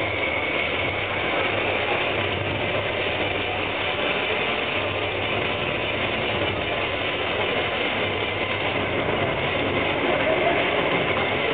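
Steady hubbub of a large crowded sports hall: an even wash of audience noise with no distinct voices or impacts standing out.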